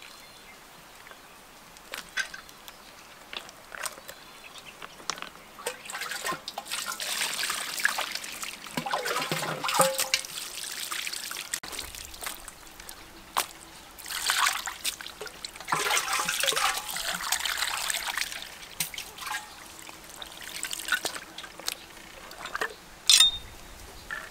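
Wet trickling and squelching as a raw duck carcass is gutted and cleaned by hand, in two longer spells, with scattered light taps. A single sharp knock near the end, a cleaver striking the duck on the stone block.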